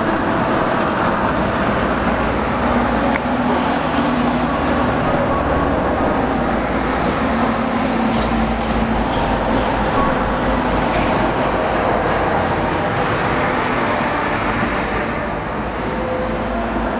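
Steady mechanical drone with a low hum and a few faint steady tones, no distinct strikes or pauses.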